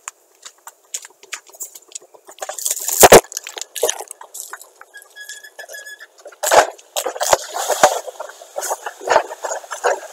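Fire crackling through a burning Panasonic Quintrix F CRT television, a dense string of sharp pops with louder bangs about three, six and a half and nine seconds in. The recording is thin and tinny, with no low end.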